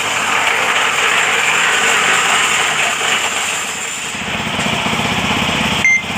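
Newly installed small engine running on a paving-block machine, steady and loud; about four seconds in a low, even engine beat comes through, with a brief break near the end.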